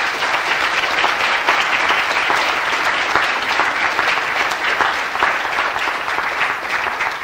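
Audience applauding steadily: the dense clapping of a full hall.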